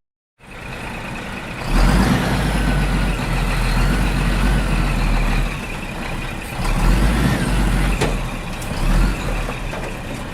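Mini tractor running, with a low engine rumble that grows louder about two seconds in and a steady high whine over it.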